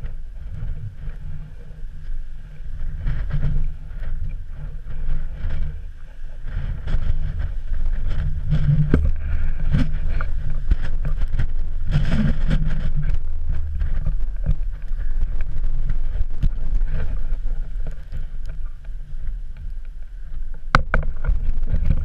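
Strong wind buffeting an action camera's microphone: a loud, gusting low rumble. A few sharp knocks come near the end.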